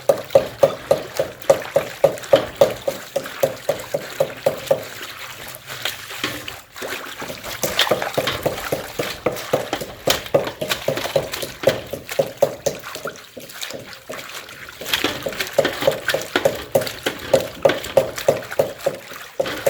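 Hands washing food in a bowl of water: a rhythmic sloshing and splashing of about three strokes a second, stopping for a moment twice.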